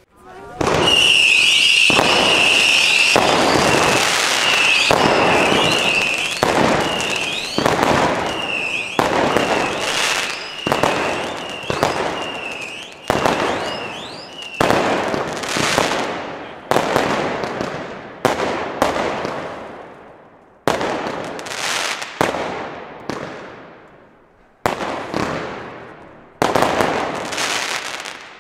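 Weco 'Spotlight' 152-shot compound firework battery firing. For the first half it is a continuous rapid barrage laced with short rising whistles. In the second half it fires single shots every second or two, each bang trailing off in its own echo.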